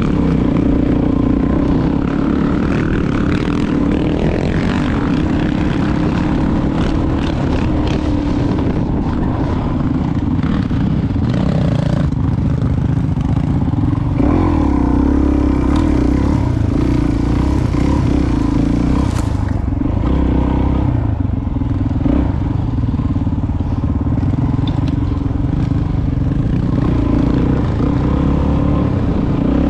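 Dirt bike engine running steadily under throttle while riding a rough dirt track, with the pitch shifting a little as the rider works the throttle. Scattered knocks and rattles from the bike over the uneven ground come through above it.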